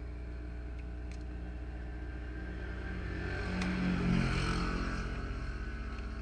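A motor vehicle passing by, swelling up about three seconds in, loudest around four seconds, then fading, over a steady low hum. A few faint clicks.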